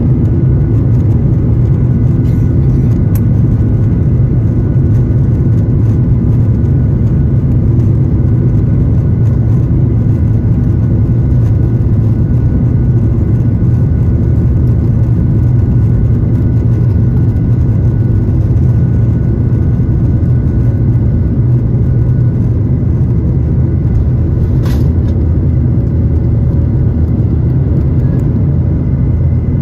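Boeing 737-8 MAX's CFM LEAP-1B turbofan engines at takeoff power during the takeoff roll, heard inside the cabin. It is a loud, steady rumble with faint high steady tones riding on top.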